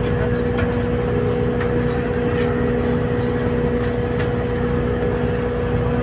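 Boat engine running steadily: a constant low drone with a steady hum, with a few faint clicks and knocks.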